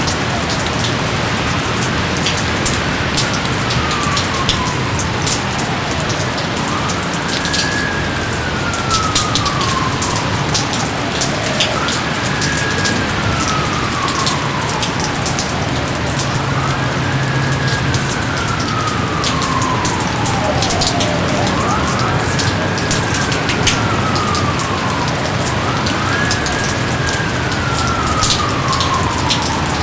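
Steady heavy rain with many close drips and patters. Over it a wailing tone repeats about every five seconds, each time rising quickly and then sliding slowly down in pitch.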